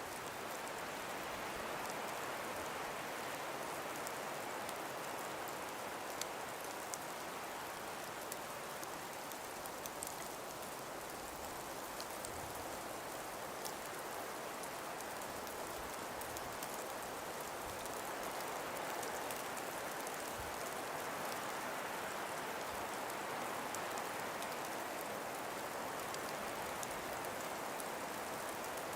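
Calm breeze blowing through frost- and ice-covered forest trees: a steady rushing hiss that eases a little a third of the way in and builds again after the middle, with faint scattered ticks.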